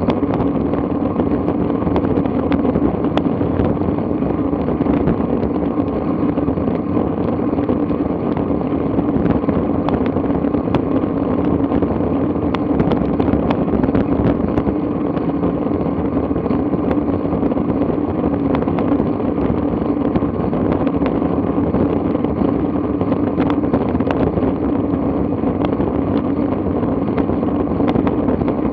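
Steady rushing noise of a bicycle rolling at speed on asphalt: wind on the bike-mounted camera's microphone and tyre noise on the road, with frequent small ticks and rattles.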